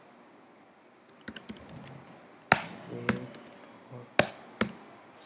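Keystrokes on a computer keyboard. After about a second of quiet comes a quick run of light taps, then several separate, louder single key presses over the next few seconds.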